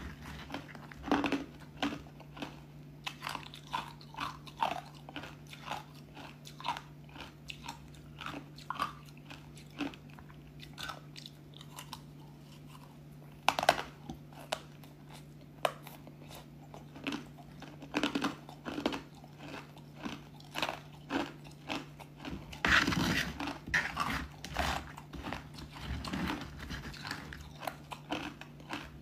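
Close-up crunching and chewing of thin, crispy pieces of white ice coated in powdery matcha: a dense run of sharp crisp crunches, with several louder bites. A faint steady low hum sits under it.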